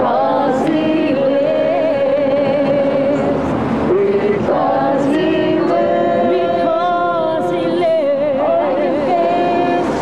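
Music with singing: several voices holding long, wavering notes.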